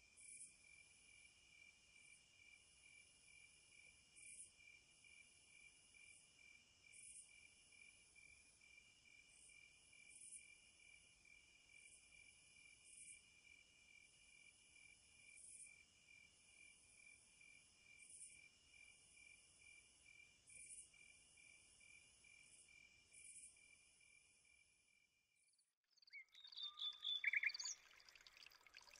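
Faint, steady, high-pitched trilling of night insects, with a sharper chirp standing out every two to three seconds. Near the end it cuts off and gives way to a few louder, irregular sounds.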